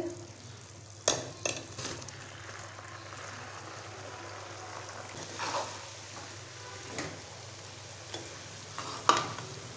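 Sugar syrup bubbling at the one-thread stage as boiled rice is added and stirred with a metal slotted spoon: a steady hiss with a few knocks of the spoon against the pan, the loudest about nine seconds in.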